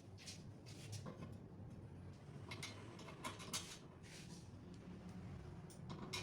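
Faint, irregular scrapes and light clicks over a low steady hum.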